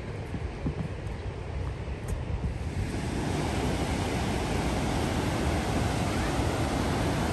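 Rushing whitewater of the Una River rapids, a dense, steady hiss of flowing water that grows louder about three seconds in.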